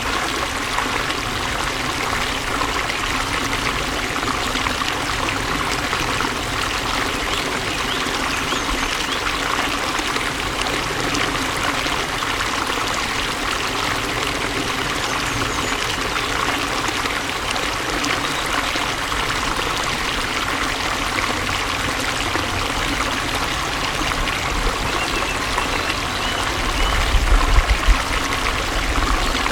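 Flowing water running steadily, with an even rushing and trickling sound. A brief low rumble rises and falls about two seconds before the end.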